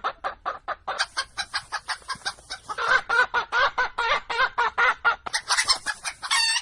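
Chicken clucking in a fast run of short, repeated calls, several a second.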